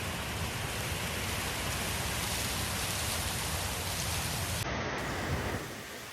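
Heavy rain pouring down, a steady hiss over a low rumble, falling to quieter rain about five and a half seconds in.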